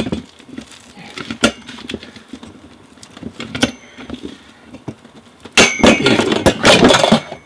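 Hand lever rivet gun setting a blind rivet through a stainless steel tube: single sharp clicks as the handles are worked, then a loud metallic clatter of rapid clicks for about a second and a half near the end as the rivet is pulled tight and the tool comes away.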